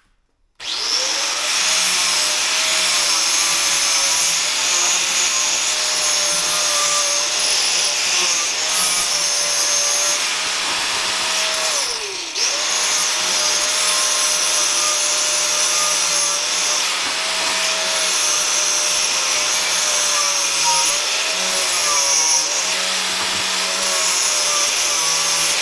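An electric grinder fitted with a wire wheel starts up and runs, scrubbing paint off the steel of a stool base, its motor whine wavering as it is pressed on. About twelve seconds in the whine falls briefly as the tool is let off, then it spins straight back up and carries on.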